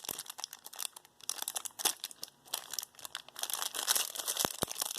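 Plastic packaging crinkling and rustling in the hands as a piece of jewelry is unwrapped, a dense run of fine crackles with a couple of sharper ticks near the end.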